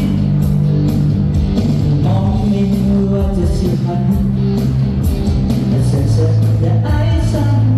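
Amplified music with a singer, a steady beat and sustained instrument notes, played through a sound system in a large hall.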